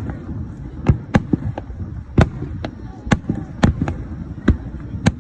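Fireworks shells bursting overhead: about ten sharp bangs at irregular intervals, sometimes two close together, over a continuous low rumble from the barrage.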